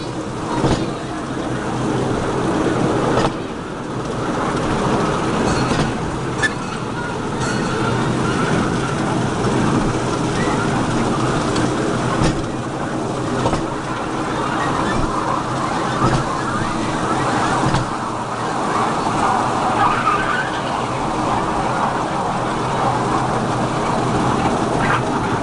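Small open-air ride train running steadily, its drive humming evenly under a continuous running noise, with a few short clicks and knocks along the way.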